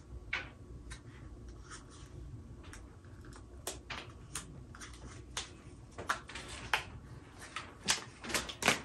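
Light, irregular clicks and taps of fingers on a smartphone, tapping the screen and handling the handset, coming more often near the end.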